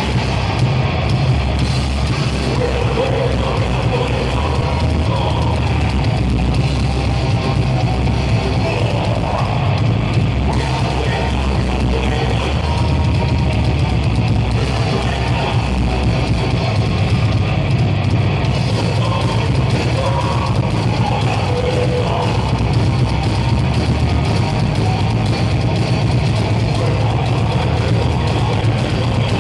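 Metal band playing live and loud: electric guitars and drum kit, steady with no breaks.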